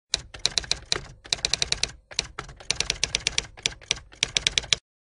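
Typewriter keys clacking in quick, irregular runs of keystrokes with short pauses between them, stopping abruptly near the end.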